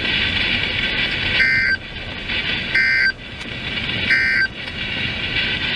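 Emergency Alert System end-of-message data tones: three short warbling two-tone bursts of SAME digital code, about a second and a half apart, over steady receiver hiss. They signal the end of the alert broadcast.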